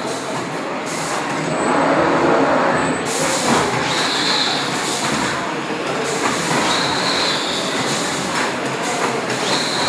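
Automatic textile screen-printing machine running, a steady mechanical clatter and hum, with a short high squeal returning every few seconds.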